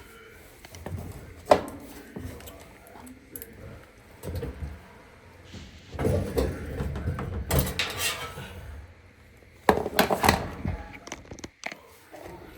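Metallic clicks and clanks of dryer parts being handled and fitted: one sharp click about a second and a half in, then clusters of clattering knocks around six to eight seconds in and again near ten seconds.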